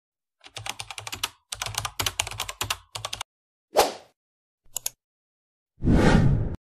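Rapid computer keyboard typing clicks for about three seconds, then a short swish, a brief click, and a louder rushing swoosh near the end.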